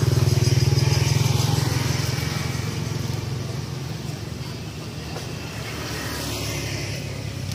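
A motor vehicle's engine running with a steady low hum, loudest at the start and fading over the next few seconds, then swelling slightly again near the end.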